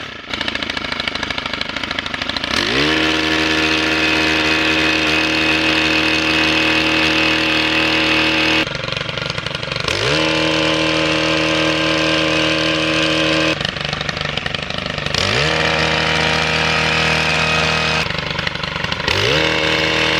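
Gas-engine post-hole auger boring into the ground: the engine revs up to a high steady pitch under throttle, holds for several seconds, then drops back toward idle, in a cycle that repeats about four times.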